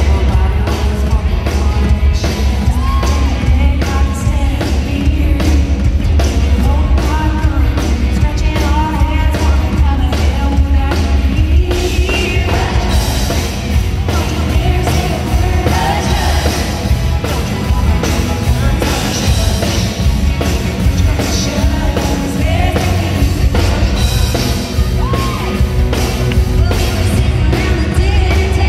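Live country band playing with women singing lead into microphones, over heavy bass and a steady drum beat, heard from the audience in a large hall.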